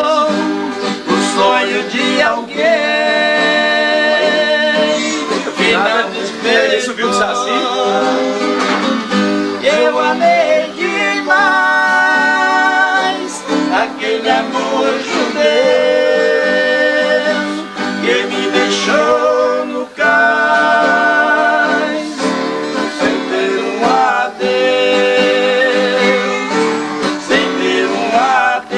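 Two acoustic guitars strummed and plucked together, with a man singing long, held notes over them.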